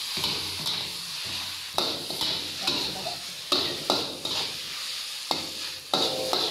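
Noodles being stir-fried in a steel wok: a steady sizzle under the scrape and clack of a metal spatula and round ladle against the wok, about once a second as the noodles are tossed.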